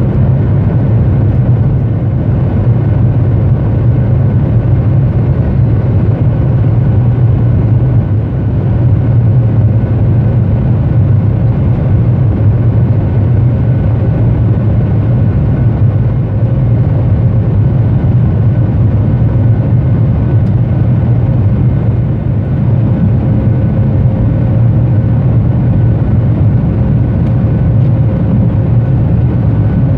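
Cabin noise of a Boeing 737-800 taxiing, heard from a window seat over the wing: its CFM56-7B engines at low power give a steady low rumble with a faint steady whine above it.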